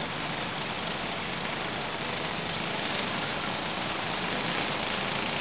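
Kid kart engines running, a steady even drone with no clear pitch.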